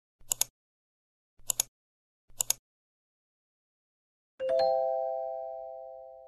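Animated intro sound effects: three short double clicks about a second apart, then a bell-like completion chime about four seconds in, several steady tones ringing together and fading slowly.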